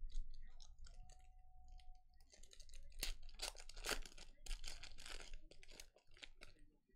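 Foil wrapper of a football-card pack crinkling and tearing as it is ripped open by hand, with a few light clicks of cards being handled before it.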